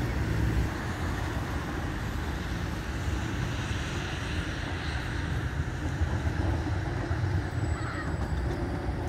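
City street traffic: a tram and cars passing, a steady low rumble.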